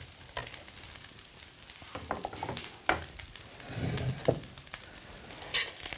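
Oats, bacon and scallions frying in bacon fat in a pan: a steady sizzle, with a few short clicks and knocks of a metal fish slice and a plate.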